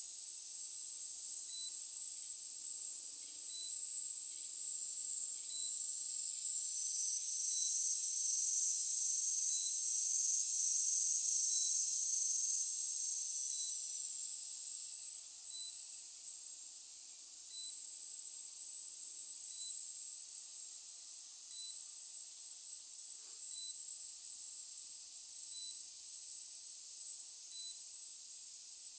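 Drone remote controller beeping once every two seconds, the alert given while the SJRC F11s 4K Pro flies back in return-to-home mode, over a steady high-pitched hiss.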